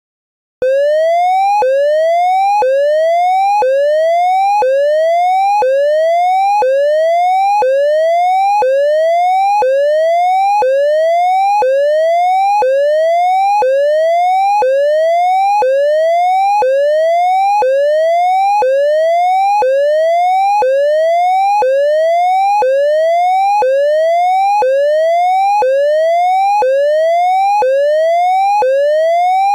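Synthesized triangle-wave siren tone imitating the 'Hazard' signal of an ASC digital electronic siren controller. A loud, pure-sounding pitch rises repeatedly, about once a second, and snaps back down at the end of each rise.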